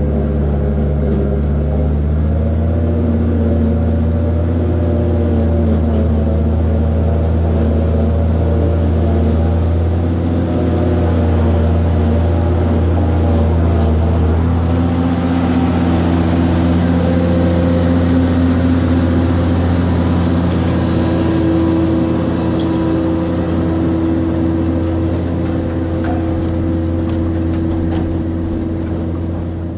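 The engine of horse-drawn harvesting machinery runs loud and steady as the rig passes close by. Its note shifts a couple of times, about two seconds in and again around the middle.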